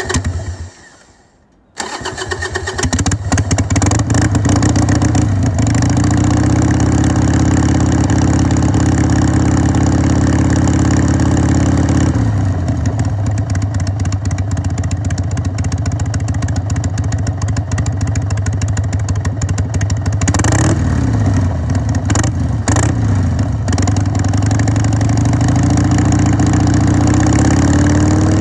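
A 2002 Harley-Davidson Sportster XLH883's air-cooled, carbureted OHV V-twin starts: a first short burst fades, then the engine catches about two seconds in. It runs at a raised idle with a dry exhaust note and drops to a lower idle about twelve seconds in. Two short throttle blips come later, and the revs climb again near the end.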